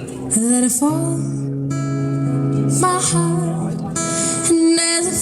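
Acoustic guitar accompaniment with a woman's voice singing over it in short held phrases.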